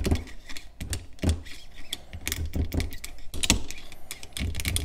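Small flathead screwdriver prying and wiggling a steel sprocket off an electric motor's shaft: irregular metallic clicks and scrapes, a few sharper clicks standing out.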